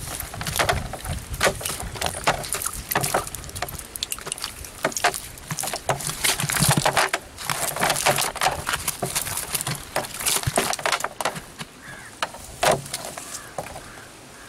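Irregular slaps, crackles and rustles as freshly netted fish and a fishing net are shaken out over a plastic sack in a tub, busiest in the middle, with one sharp knock near the end.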